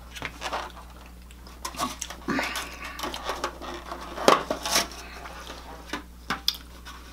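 Clear plastic takeout clamshell being handled and snapped open, with scattered clicks and crackles and some clatter of dishes on the table; the sharpest snap comes about four seconds in.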